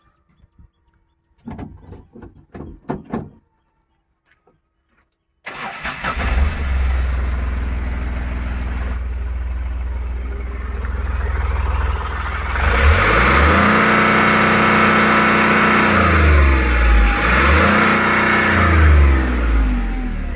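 Ashok Leyland Dost light truck's diesel engine, heard from inside the cab: after a few clicks and knocks, it starts suddenly about five seconds in and runs steadily, then from about twelve seconds in its speed rises and falls three times as it is revved.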